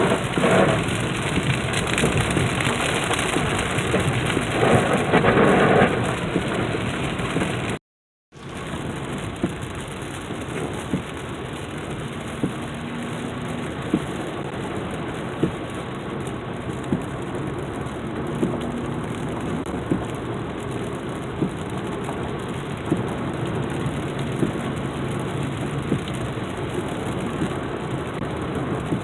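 Heavy rain coming down, with scattered sharp taps of single drops standing out. It swells louder in the first few seconds, drops out briefly about eight seconds in, then goes on steadier and a little quieter.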